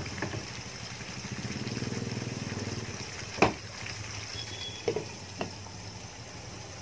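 Chicken pieces cooking in a pot, with a steady low hum underneath. A sharp knock about three and a half seconds in and two lighter knocks around five seconds come as a glass lid is set on the pot.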